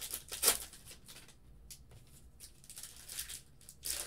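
Foil wrapper of a trading-card pack crinkling and tearing as it is pulled open by hand, with a sharp rip about half a second in and another burst of crinkling near the end.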